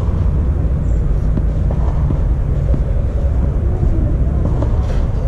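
Steady low rumble, with a few faint knocks of a tennis ball being struck by rackets in a rally.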